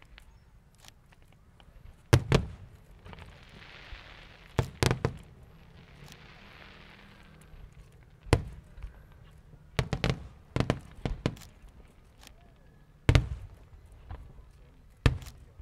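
Fireworks going off in an irregular series of sharp bangs, about a dozen in all, some in quick pairs. Stretches of hiss fill the gaps between some of them.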